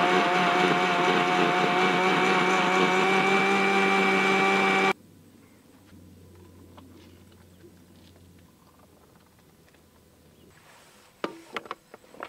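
Electric mixer-grinder running steadily for about five seconds as it grinds grapes into juice, then switched off abruptly. Faint clicks follow, and a few sharp knocks come near the end.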